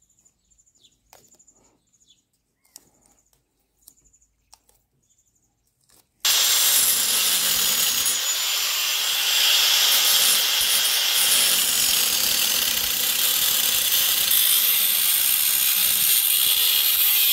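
Faint ticks and rustles of the metal cover being handled, then about six seconds in an angle grinder with an unguarded cut-off wheel comes in suddenly and keeps cutting steadily through a perforated steel muffler cover, loud and unbroken.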